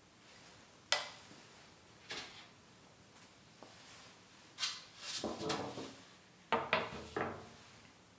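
Kitchen handling sounds: short knocks and clatters as a metal baking tray is lifted and set down on the worktop, with light taps from a metal scone cutter. Single knocks come about one and two seconds in, a run of clatters around the middle, and three quick knocks near the end.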